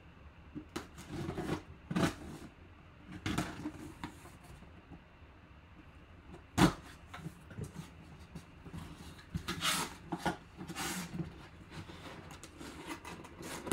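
Cardboard box being opened by hand: a folding knife slits the packing tape, then the flaps are pulled open and an inner box is drawn out. Scattered scrapes, rustles and light knocks, with one sharp knock about six and a half seconds in.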